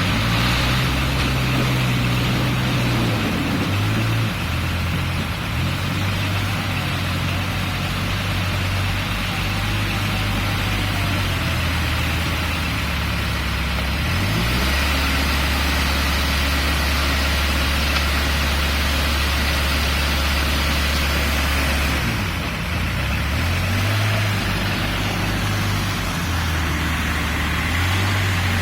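Diesel engine of a Case N-series backhoe loader running as the machine works, its engine speed shifting up and down. About halfway through it settles to a lower steady note for several seconds, then picks up again.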